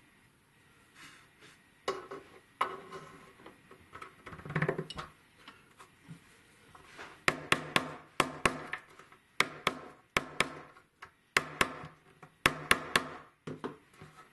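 Light, sharp taps of a small hammer on a punch set in a brass lock plate's screw hole, coming in quick pairs about two a second from about halfway through. Before that, scraping and light knocks of the brass lock being handled against the wooden case.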